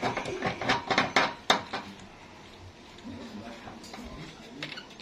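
Metal hand tools and bolts clinking against metal in a quick run of sharp clicks for about two seconds, then quieter handling sounds.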